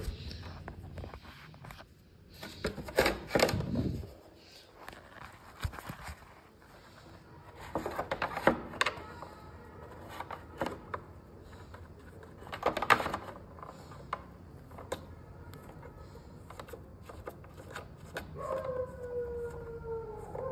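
Plastic and metal handling noise as a bolt is worked into a black plastic motorcycle body panel: scattered clicks, taps and rattles in a few short clusters. Near the end a dog starts whining in a long, slightly falling tone.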